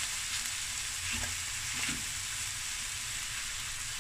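Boneless chicken thighs sizzling steadily as they fry in a stainless steel pan. A fork moves the pieces around in the pan.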